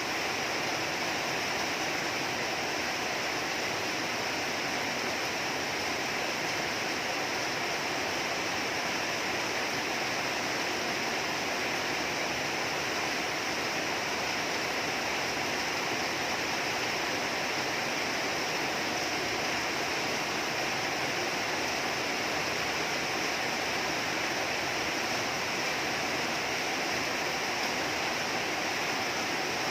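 Steady heavy rainfall, an even unbroken hiss of rain.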